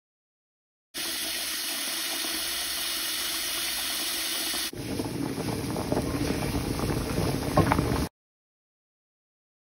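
Tap water pouring steadily into a steel pot of chopped potatoes, starting about a second in. About halfway through it changes abruptly to water at a rolling boil bubbling in the pot, uneven, with a few louder pops near the end, and stops suddenly about eight seconds in.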